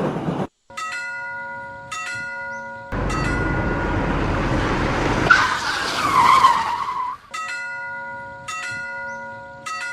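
Railroad crossing warning bell ringing in slow, evenly spaced strikes about a second apart, each ringing on. It is cut off after two strikes by about four seconds of loud rushing noise with a high squealing screech in the middle, then the bell strikes resume.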